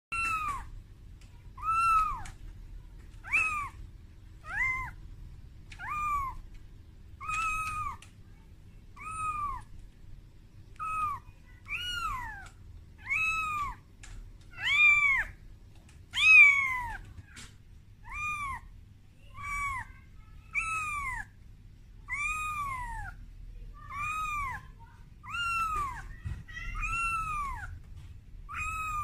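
A very young kitten meowing over and over, about one cry every second and a half, each cry rising and then falling in pitch. These are distress cries of a frightened kitten calling for its mother.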